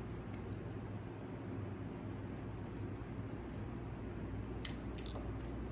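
Scissors cutting through fabric: a few faint scattered snips and clicks over a steady low hum.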